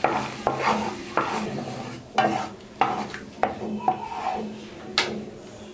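A spoon stirring caramelising sugar syrup in a pan on a gas stove, scraping and clicking against the pan every half second or so, over a light sizzle.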